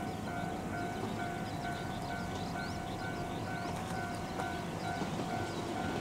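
Railway level-crossing warning alarm ringing steadily, a tone pulsing about twice a second over a steady lower tone, signalling an approaching train. Under it is a low rumble, with short bird chirps.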